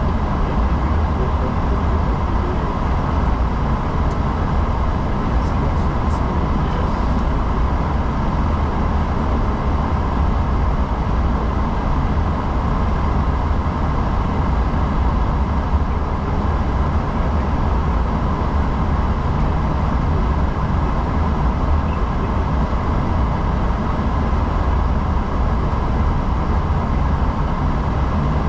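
Steady cockpit noise of an Airbus A340-600 on the ground: a constant low rumble with a hiss of air and a faint steady tone, without any change.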